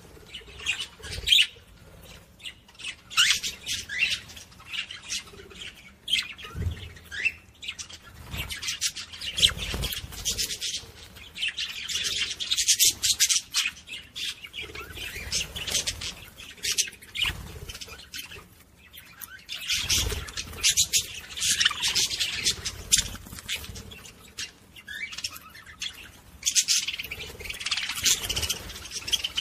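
Budgerigar warbling: a rapid, chattering run of chirps and squawks in long bursts with brief pauses. This is the male's courtship song, played to get hens into breeding condition.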